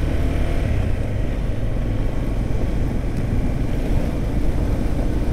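KTM 390 Adventure motorcycle's single-cylinder engine running steadily.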